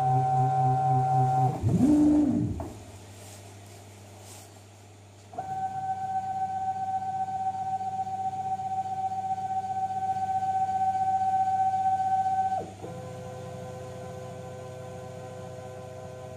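Homemade 3-axis CNC router carving wood, its motors whining in steady tones that change as the moves change. About two seconds in there is a short pitch glide up and back down, then a quieter stretch. A strong steady whine follows for about seven seconds, and then a softer hum of several tones.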